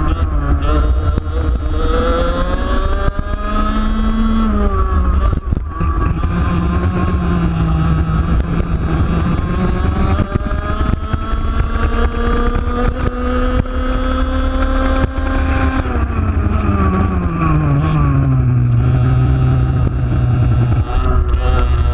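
125cc two-stroke TaG kart engine, heard onboard at racing speed. It revs up along the straights and drops in pitch when braking for corners, briefly about five seconds in and deeply around sixteen seconds, before climbing again near the end. A heavy low rumble runs underneath throughout.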